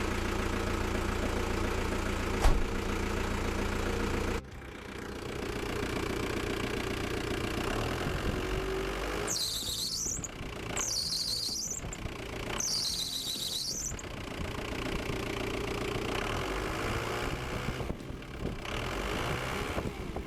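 Ford Transit MK3 engine running on a test run, its drive belt for the alternator and water pump chirping out three high-pitched squeals of about a second each midway through. The belt squeal is still there with the power steering pump disconnected, which rules that pump out as the cause.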